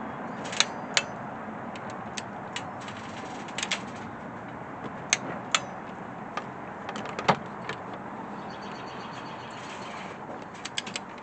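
Scattered sharp metallic clicks and clinks of a torque wrench and ratchet tightening bolts on the GM 3.6 L V6's timing chain parts, torque set at 18 ft-lb, with a few quick runs of clicks, over a steady hiss.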